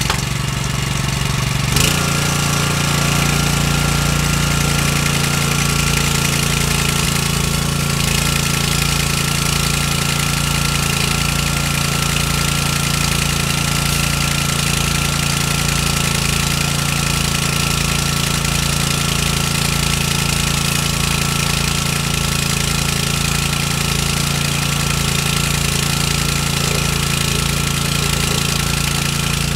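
The small gas engine on a 25-gallon sprayer cart starting up, then running steadily while it drives the sprayer's pump, rated at 200 PSI. It settles into an even run about two seconds in.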